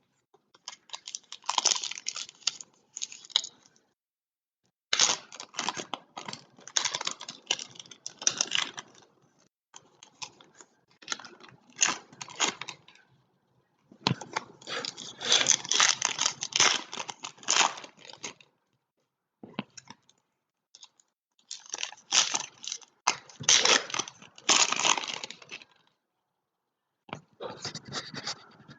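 Trading card packs being torn open and their wrappers crinkled, in repeated bursts of a few seconds with short pauses between packs.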